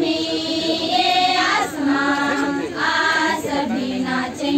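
A group of schoolgirls singing a Hindi welcome song together as a choir, holding long sung notes that step from pitch to pitch.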